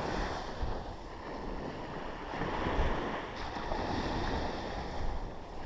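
Sea surf washing on the beach, with wind buffeting the microphone in low rumbling gusts; the wash swells about two and a half seconds in.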